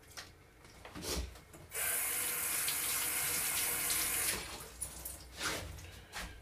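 Water running into a sink for about two and a half seconds, starting and stopping abruptly, with a couple of faint knocks before and after.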